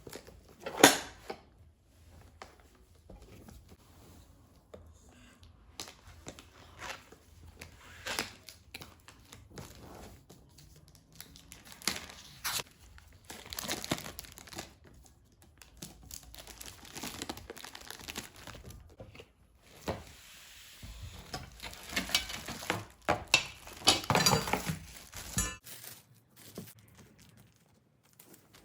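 Crinkling and tearing of packaging handled by hand, with scattered knocks and a sharp knock about a second in; the rustling grows busier and louder near the end, then stops.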